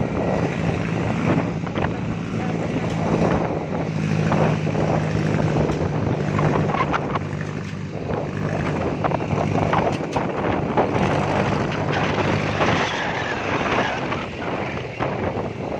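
Motorcycle engine running steadily while riding, with heavy wind noise buffeting the microphone; the engine hum fades near the end.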